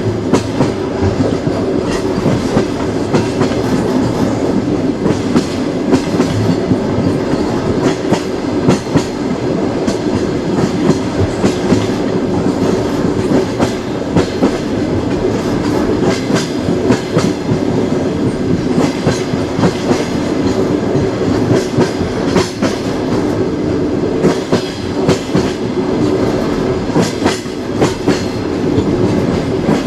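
Moving train: the steady rumble of its running wheels, with frequent sharp clicks as the wheels pass over rail joints.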